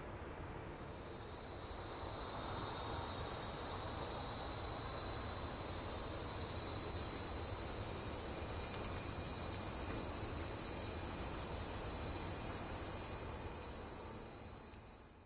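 Insect chorus: a dense, steady high-pitched chirring that swells in over the first couple of seconds and fades away near the end.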